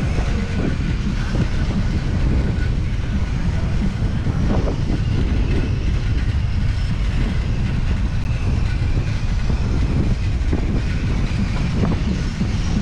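Steady low rumble of wind on the microphone and tyres rolling, from a camera riding along on a moving bicycle.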